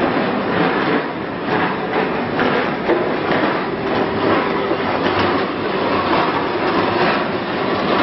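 Carbonization furnace plant machinery running: a loud, steady mechanical din with continual irregular rattling knocks and a faint steady hum underneath.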